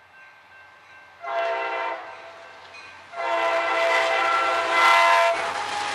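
CSX freight locomotive horn sounding for a grade crossing: a short blast about a second in, then a longer, louder blast, each a chord of several notes. The horn cuts off near the end and the steady rumble of the train running across the crossing takes over.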